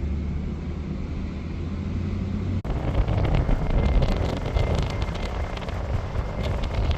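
A steady low vehicle drone. About two and a half seconds in it cuts off abruptly to gusty wind rumble on the microphone, with scattered crackles.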